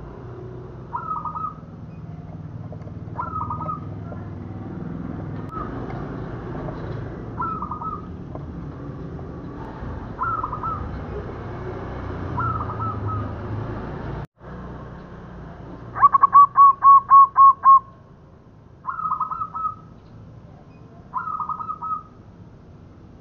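Zebra dove (perkutut) cooing: short coo phrases about every two seconds, and a fast run of about seven loud coo notes about two-thirds of the way through.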